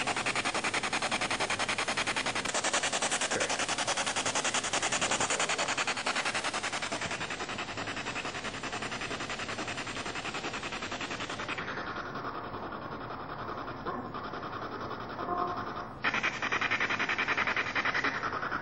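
Spirit box sweeping through radio frequencies: a steady, rapid, evenly chopped static hiss. It grows quieter and duller about halfway through, then comes back louder near the end.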